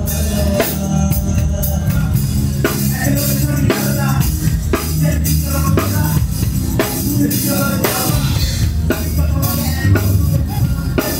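Hip-hop beat with a heavy bass line and drum kit, with a hard hit landing about once a second.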